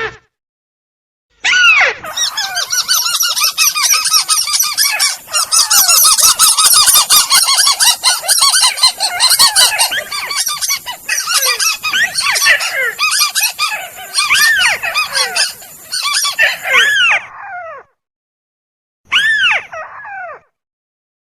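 Recorded lure calls of crakes (burung tikusan): a dense, overlapping chorus of harsh, quickly repeated down-arching calls that starts a moment in and stops short about 18 seconds in, followed by one short burst of calls near the end.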